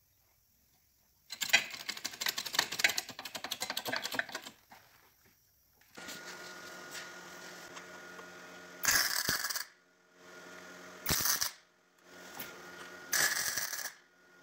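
MIG welder tacking a steel gearbox-mount bracket onto a tube frame: three short bursts of arc crackle about two seconds apart, over a steady electrical hum. Before them, in the first few seconds, a longer stretch of dense crackling holds the loudest peaks.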